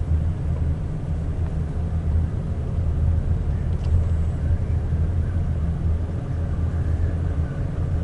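Car interior road noise while driving slowly: a steady low rumble of engine and tyres heard inside the cabin.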